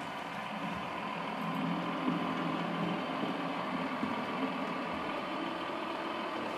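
HO scale Märklin model diesel railcar running into the station, giving a steady engine-like drone.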